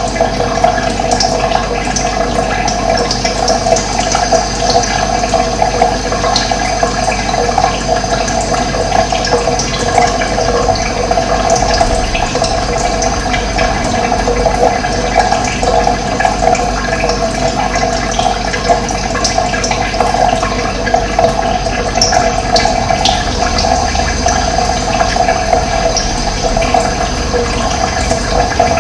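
Steady rush of running water with no break, and short high bird calls here and there.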